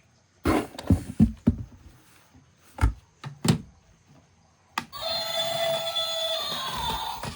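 A quick run of sharp clicks and knocks, like plastic toys being handled and set down, then, about five seconds in, steady music-like electronic tones start and keep going.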